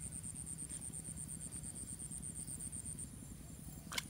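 An insect chirping in fast, even pulses, cutting off about three seconds in, over a low rumble. Just before the end comes one sharp splash as a small fish is yanked out of the water on the line.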